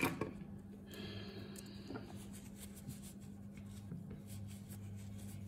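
Faint rustling and rubbing of a paper tissue being handled, with a sharp click at the start and a steady low hum underneath.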